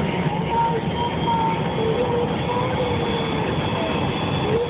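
Steady cabin noise of an MD-88 airliner taxiing, heard from over the wing, its tail-mounted Pratt & Whitney JT8D turbofans at low power. A faint high whine runs through it, with fainter tones wavering up and down in pitch.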